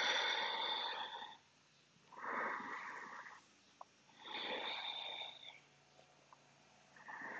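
A woman breathing deeply and audibly, four long breaths about two seconds apart with quiet pauses between. She is slowing her breath down again after a strenuous yoga flow.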